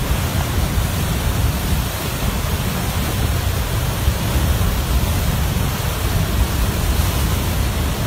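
River torrent of floodwater and broken ice surging downstream after an ice dam gives way: a loud, steady rushing.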